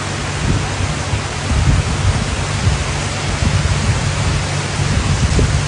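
Heavy rain pouring down: a loud, steady hiss with a low rumble underneath.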